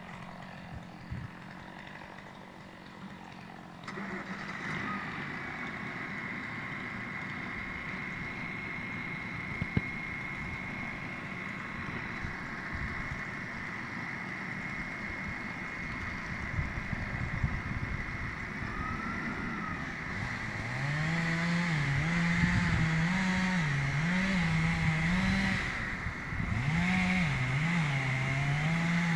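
An engine starts running about four seconds in and runs steadily with a thin high whine. From about twenty seconds in it revs up and down again and again and gets louder.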